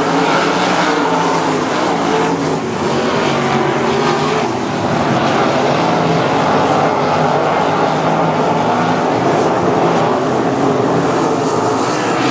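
A field of 305 winged sprint cars racing, several 305-cubic-inch V8 engines running hard at once in a steady, dense blend.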